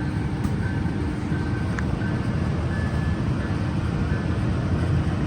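Amtrak passenger train led by a Siemens Charger SC44 diesel locomotive pulling out of the station: a steady low rumble with a faint steady whine over it.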